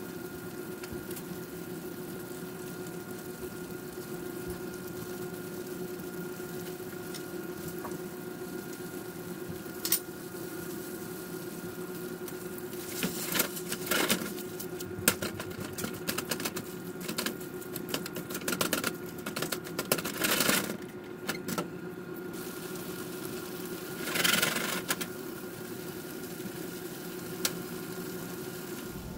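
Kitchen cooking sounds: a steady hum throughout, with a stretch in the middle of irregular clatters and scrapes of a utensil against a pan.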